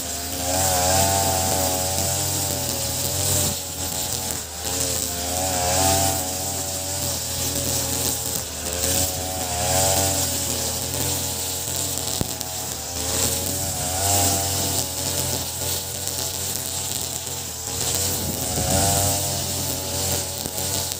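Ogawa BG330 33cc two-stroke brush cutter running at cutting speed, its 2.4 mm square nylon line whipping through grass with a steady high hiss. The engine note swells and wavers about every four seconds as the head sweeps back and forth through the grass.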